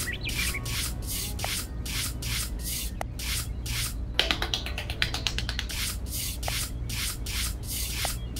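Small metal hand trowel scraping and smoothing damp sand in repeated short strokes, about two or three a second, coming quicker for a moment around the middle.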